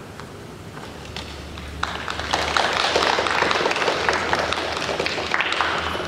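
Crowd applauding: scattered clapping begins about a second in and swells to full, dense applause about two seconds in.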